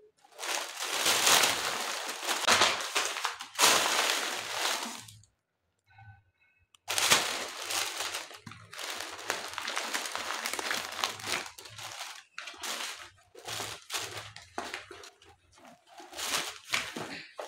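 Bags and packaging being handled, rustling and crinkling. It comes in long stretches with many small crackles, and pauses for about two seconds around five seconds in.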